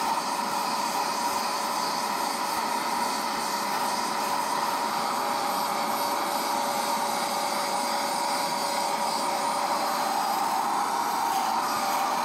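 Portable carpet spot cleaner's suction motor running steadily, a constant whine over a hiss, as its hand tool sprays and draws cleaning fluid out of a carpet.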